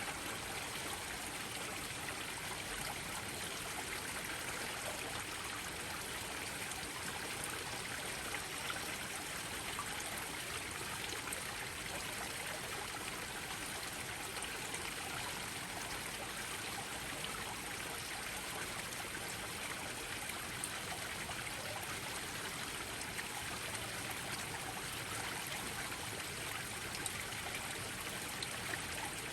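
Small pond waterfalls splashing and trickling steadily into a koi pond, with scattered drips and splashes.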